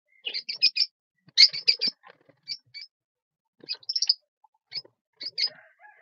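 Lovebirds chirping: short, high, sharp chirps in quick runs of three or four, with brief pauses between runs.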